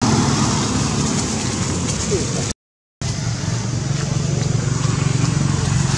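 Steady low engine hum, like a nearby motor vehicle running, broken twice by brief dropouts to dead silence.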